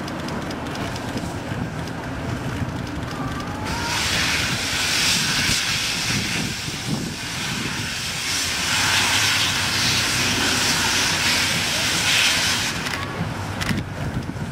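Steam locomotive C57 180 and its train running along an elevated viaduct: a steady low rumble throughout, with a loud rushing hiss that starts suddenly about four seconds in and cuts off about nine seconds later.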